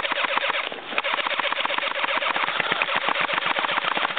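Several airsoft guns firing on full auto: a rapid, steady stream of sharp clacks, with a short break a little under a second in.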